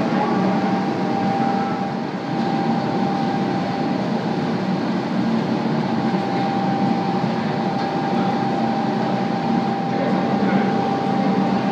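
Steady roar of a gas-fired glass furnace and its blowers, with a constant mid-pitched whine running through it.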